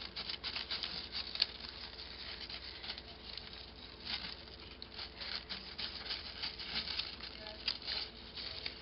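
Small scissors snipping through a folded stack of tissue paper, cutting its edges to points: short crisp cuts coming in irregular bunches.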